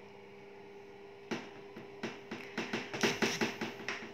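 A metal spoon clicking and scraping against a plastic tub and a metal muffin tin as thick batter is spooned into the cups: a few sharp clicks starting about a second in, then a quick cluster of them near the end. A steady hum runs underneath.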